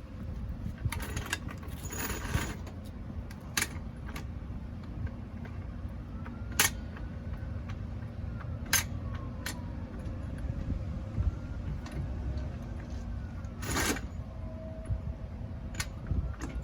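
Scattered metallic clinks and knocks from handling a jack and lifting gear, a few single strikes spaced a second or more apart, over a steady low rumble.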